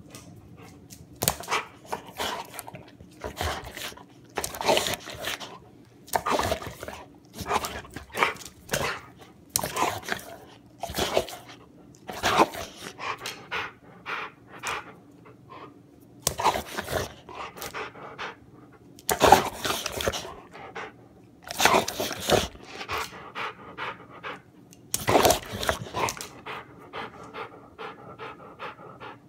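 A large dog panting hard and snuffling at the floor as it chases a laser pointer dot, with its paws scuffing on a tile floor in irregular bursts.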